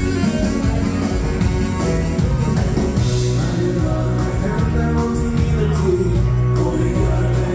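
Live dance band playing a rock'n'roll number with drums, electric guitar, keyboards and saxophone, and a male singer singing into a microphone.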